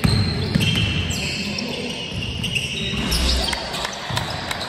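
Basketball being dribbled on a wooden sports-hall floor during a game, a series of sharp bounces.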